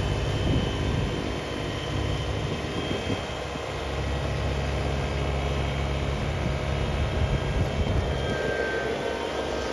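Kubota BX subcompact tractor's three-cylinder diesel engine running steadily while it works snow with a rear blade, its note shifting slightly around the middle.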